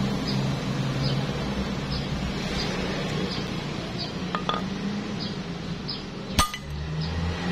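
A single sharp metallic clink about six seconds in, as the steel reinforcing rod is struck or handled on the concrete. Under it runs a steady low hum with faint regular ticks.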